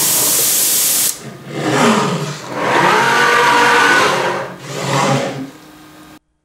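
CNC milling machine with a Jäger high-frequency spindle cutting and moving its head: a steady high hiss for about a second, then the axis drives whining up and down in pitch as the head travels. It cuts off suddenly near the end.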